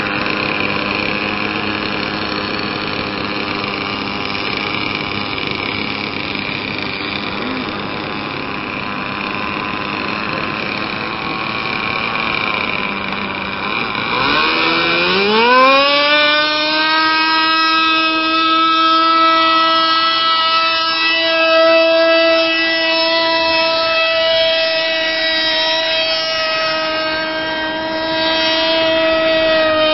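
Radio-controlled model aeroplane engine idling steadily, then about 14 seconds in throttling up with a fast rise in pitch for the takeoff run, and running steadily at high power after that.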